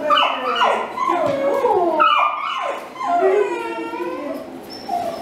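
Small dog vocalising during a tug-of-war game: a run of high calls that slide up and down in pitch, with a brief pause about two seconds in.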